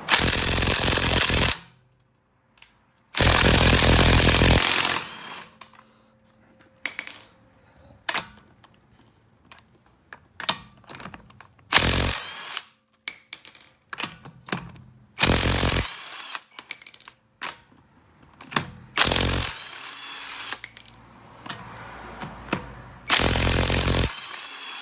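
Brushless 20V cordless 1/2-inch impact wrench hammering lug nuts loose from a car wheel, in six bursts of about half a second to a second and a half, with small clicks and knocks between them.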